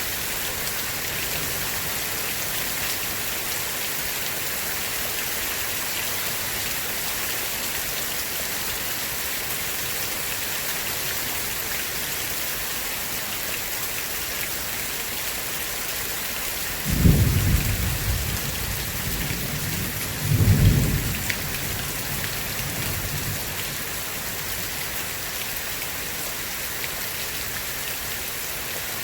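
Steady heavy rain hissing, with a crack of thunder rumbling about halfway through and a second loud rumble a few seconds later that fades away.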